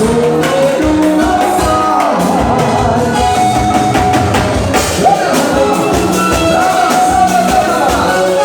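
Upbeat dance music: a singing voice over a steady, driving drum beat.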